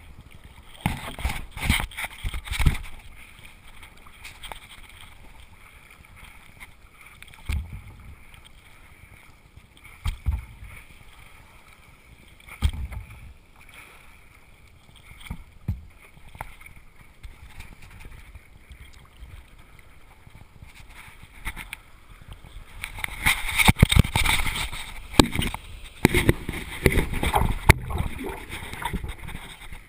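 Stand-up paddle strokes in the water: the paddle blade dipping and pulling through with a splash and gurgle every two to three seconds, turning into a longer run of louder, near-continuous splashing near the end.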